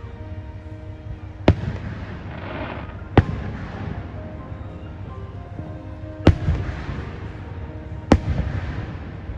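Fireworks shells bursting: four sharp bangs about two seconds apart, each trailing off over a second or so, with music playing underneath.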